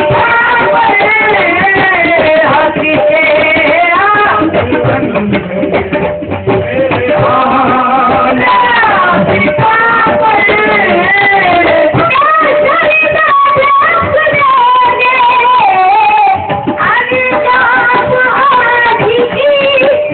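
Sufi devotional song, a qawwali-style kalam: a voice sings a melody that glides up and down, with drumming underneath.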